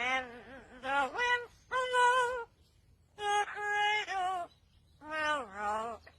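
A talking bird making a run of short voice-like phrases, about seven of them, with swooping pitch and brief gaps between them.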